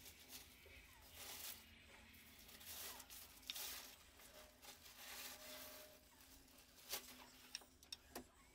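Quiet rustling and handling with a few light clicks, as hands work among steel bowls of food and dishes of spice.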